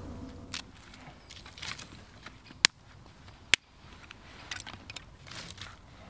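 Dry sticks and brushwood rustling and crackling as they are handled on the forest floor, with two sharp cracks about a second apart near the middle.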